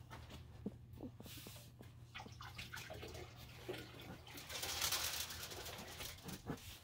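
Faint rustling and soft handling noises close to the microphone, like a blanket shifting against a phone held in bed, with a longer hissing rustle of about a second near the middle.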